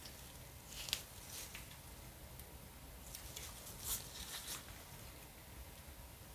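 Nitrile-gloved hands handling a smartphone: faint rubbing and rustling of the gloves on the glass and frame, with a sharper tick about a second in and another just before four seconds.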